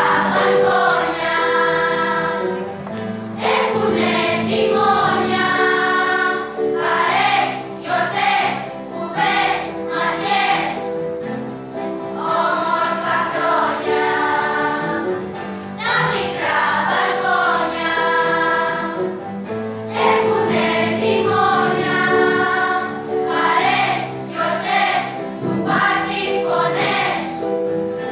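Children's school choir singing a song together, many young voices in sustained phrases.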